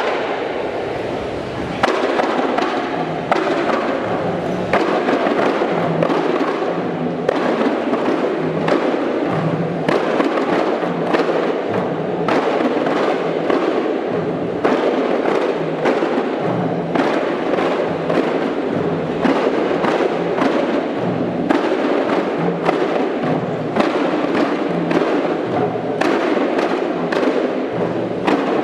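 Kompang ensemble: many hand-struck Malay frame drums playing a fast, dense rhythm of sharp slaps. The strokes grow louder and more regular about two seconds in.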